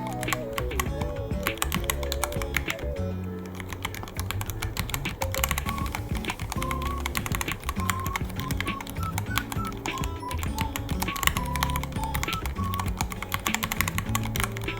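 Rapid, continuous typing on a Ducky One 3 mechanical keyboard, a dense stream of key clicks, over background music with a melody and a steady bass.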